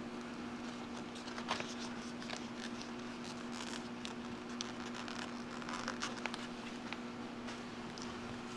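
Paper rustling with small clicks and scrapes as the edge of a rolled paper poster is worked into a poster hanger strip, over a steady low hum.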